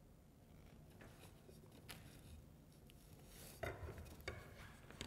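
Faint taps and knocks of a modelling tool cutting the ends of air-dry clay strips against a wooden rolling guide on a board, with a few sharper knocks a little past halfway.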